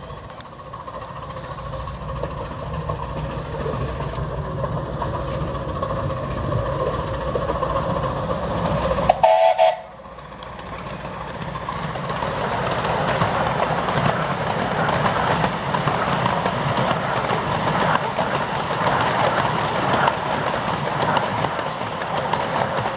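A 7¼-inch gauge miniature steam locomotive running with its train, growing louder as it approaches, with one short whistle blast of a few notes about nine seconds in. After that, the locomotive and carriages roll steadily past over the rails.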